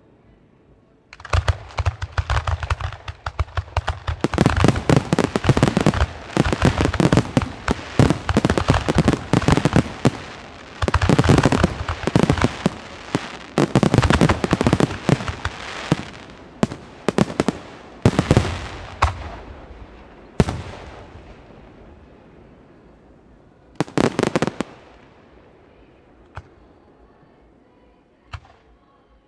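Weco display fireworks: aerial shells bursting in a dense, rapid barrage, bang after bang overlapping. The barrage starts about a second in and thins out after about twenty seconds to a few single reports.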